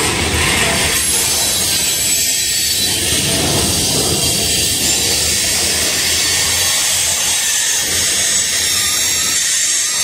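Covered hopper cars of a freight train rolling past close by: a steady rush of steel wheels on the rails, with the low rumble thinning after about six seconds.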